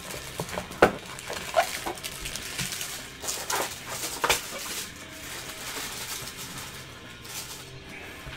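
A handful of short, sharp knocks and clicks over the first four seconds or so, as from a cardboard box of trading cards being handled and set down.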